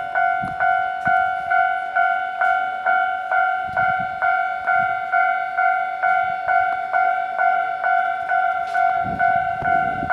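Japanese railway level-crossing alarm bell ringing its repeated electronic ding, about two strikes a second, warning that a train is coming. A low rumble joins the bell near the end.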